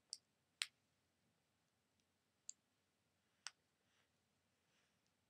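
Near silence broken by four faint, sharp clicks, two close together at the start and two more a couple of seconds later, from small objects being handled.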